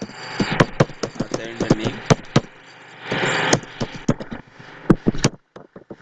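Typing on a computer keyboard: irregular key clicks, several a second. There is a short breathy hiss just after three seconds in.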